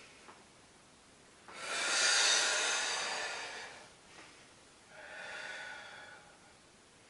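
A woman breathing hard with effort during a Pilates roll-up. One long, loud breath begins abruptly about a second and a half in, and a shorter, softer breath follows near the end.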